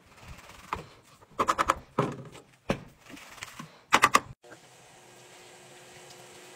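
Knocks and clatter from handling at a top-loading washing machine: a few single knocks and two quick rattling runs of them. A faint steady hum follows from about four and a half seconds in.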